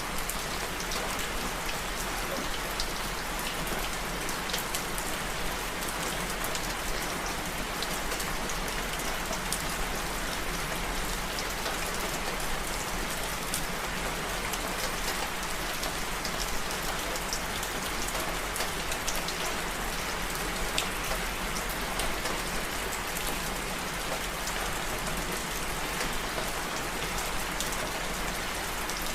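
Steady rain falling, a dense hiss with many small drops pattering on a surface.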